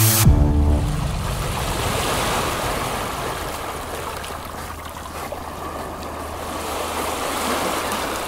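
Sea waves washing: a steady rush of water that eases off and swells again near the end, after the last notes of electronic music fade away in the first second.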